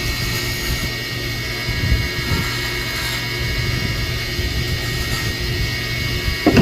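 Wood lathe running steadily, a continuous motor drone with a noisy haze over it, and a brief thump near the end.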